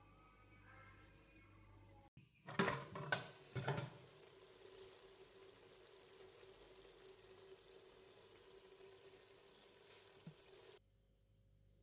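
A pot of sauce simmering on the stove, a steady quiet hiss. Before it, a few loud clattering knocks come about two and a half seconds in, and the simmering cuts off suddenly near the end.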